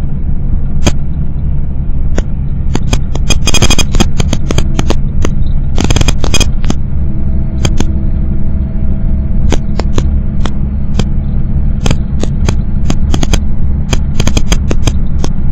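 Cabin noise of a moving road vehicle at speed: a loud, steady low rumble of road and engine noise with many irregular sharp clicks and rattles, and a faint steady hum joining about halfway through.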